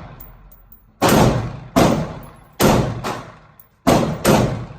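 Five gunshots from a semi-automatic firearm fired in an uneven string, each shot followed by a short echoing tail.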